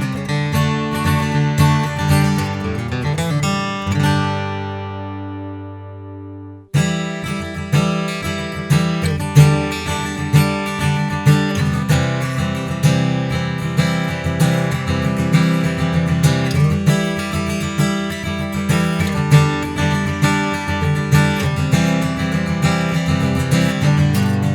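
Gibson J200 Custom Double Vine jumbo acoustic guitar being strummed. About four seconds in a chord is left to ring and fade, then the strumming starts again abruptly and keeps going with strong strokes roughly once a second.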